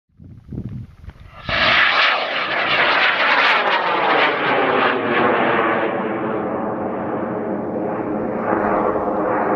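High-power rocket motor in flight, heard from the ground: a low rumble, then from about a second and a half in a loud steady roar whose tone slowly falls as the rocket climbs away.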